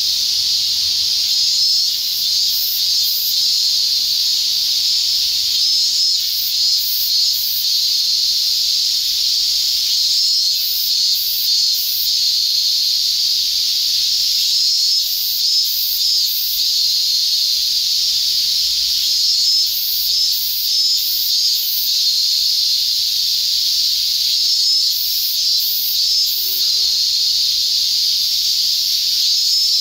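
Loud, steady cicada chorus with an unbroken sizzling hiss. Short flurries of very high flickering come through every few seconds.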